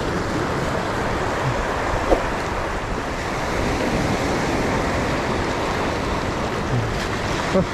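Sea surf washing over a rocky shoreline, with wind buffeting the microphone. There is a brief knock about two seconds in and another near the end.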